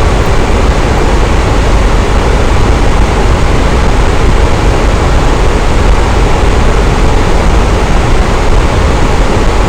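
Electric fan running at a steady speed: an even rushing of moving air with a low rumble and no change in pitch or level.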